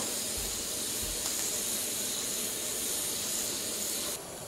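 Steam hissing steadily out around the whistle weight of a stainless-steel stovetop pressure cooker, the sign that the cooker has built up pressure. The hiss cuts off abruptly near the end.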